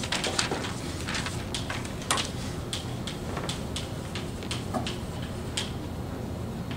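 Chalk tapping and scratching on a blackboard as words are written: an irregular run of short strokes, with a sharper tap about two seconds in. A steady low room hum lies underneath.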